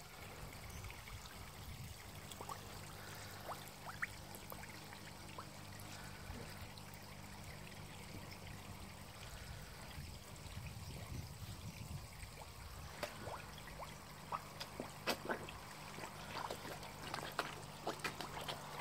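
Water trickling and splashing steadily into a garden fish pond, over a steady low hum. From about two-thirds of the way in, brief sharper splashes and drips come more often.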